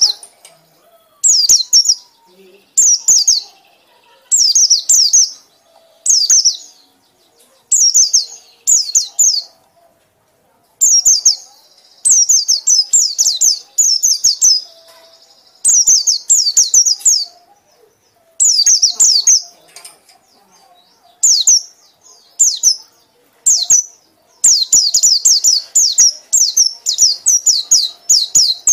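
White-eye (pleci) chattering song: high-pitched bursts of quick down-slurred notes, each about a second long, repeated every second or two with short pauses between. This is the rapid 'ngekek' chatter.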